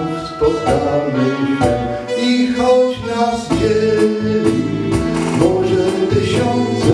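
A slow tango played on an instrumental backing track, with a man singing along into a microphone.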